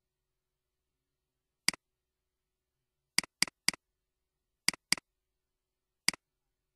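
Computer mouse button clicking seven times, each click a sharp press followed at once by the release: one click, then a quick run of three, a pair, and a last single click, with dead silence between.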